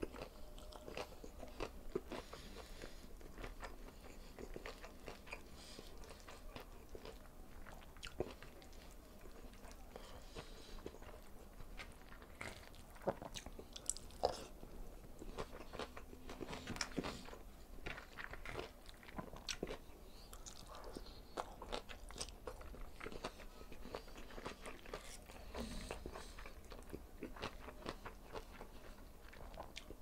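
Close-miked chewing and biting of a hand-eaten meal of string bean adobo with liver, fried tilapia and rice, with scattered sharp crunches throughout.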